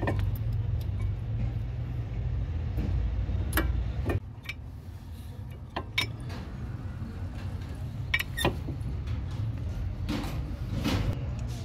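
Brake pads being fitted by hand into a disc brake caliper bracket: short metallic clicks and knocks as the pads and their clips seat, scattered irregularly, with a pair of sharper knocks about eight seconds in. A steady low rumble runs underneath.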